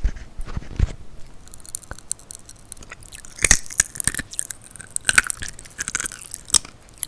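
Popping candy being chewed: a close, irregular run of sharp crackles and crunches, starting about a second and a half in and thickest in the second half.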